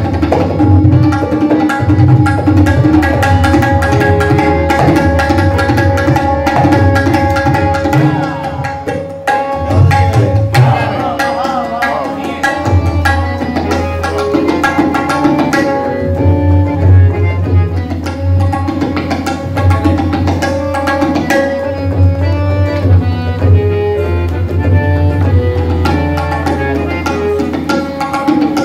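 Tabla solo in teentaal, the 16-beat cycle: a dense run of rapid hand strokes on the drums over deep ringing bass strokes, with a steady melodic accompaniment holding the cycle underneath.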